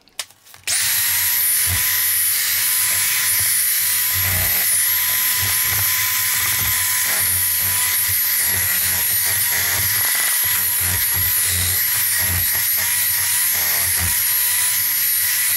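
Electric hand mixer switching on about a second in and running steadily with a high whine, its beaters whipping brownie batter in a stainless steel bowl, with irregular low knocks underneath.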